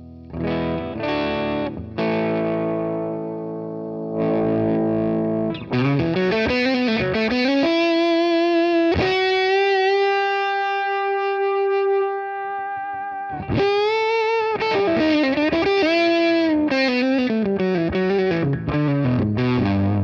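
Electric guitar played through a BJFE Bone Bender, a Tone Bender-style fuzz pedal, switched on and working: a few fuzzed chords at first, then a single-note lead with string bends and one long sustained note with vibrato about halfway through.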